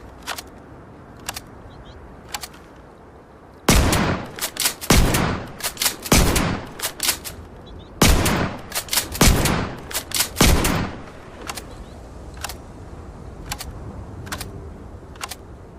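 Shotgun sound effect: six loud blasts about 1.2 seconds apart, each with a ringing tail, starting about four seconds in and ending near eleven seconds. Before and after the blasts come quieter sharp clicks about once a second.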